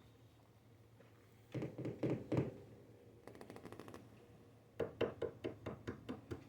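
Hand knocking and tapping on furniture to guide a blind cat by sound: a cluster of knocks about a second and a half in, a quick run of light ticks in the middle, then about ten quick knocks near the end.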